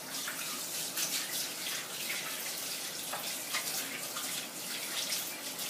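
Food frying on the stove: a steady crackling sizzle.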